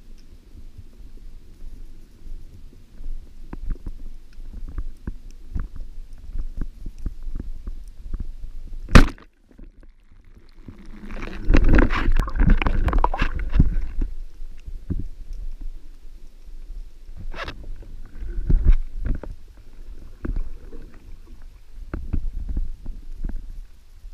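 Underwater sound picked up by a spearfisher's camera: a low rumble with constant small clicks and crackles. A single sharp, very loud crack comes about nine seconds in, and a few seconds later there is a burst of rushing noise lasting about three seconds.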